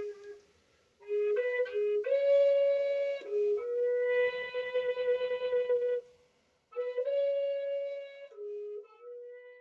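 Slow solo melody on a flute-like wind instrument: long held notes in three short phrases, with brief pauses between them.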